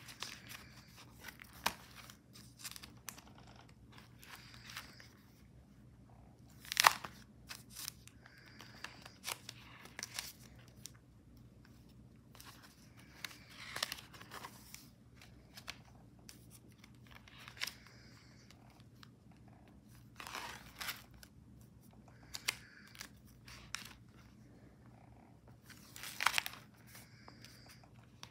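Stiff, glue-covered magazine-collage pages of a thick coil-bound book being turned one after another: irregular crinkling and rustling of paper, loudest about seven seconds in and again near the end.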